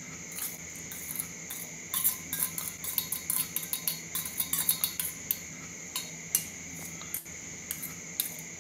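A metal spoon clinking and scraping against stainless-steel bowls in quick, light taps as chopped onion and tomato are scraped into a thin batter. A steady high-pitched tone runs underneath.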